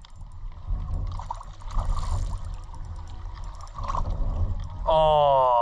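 Low rumbling outdoor noise with faint water sounds and a few light clicks, then, near the end, a man exclaims a long 'Oh!' that falls in pitch.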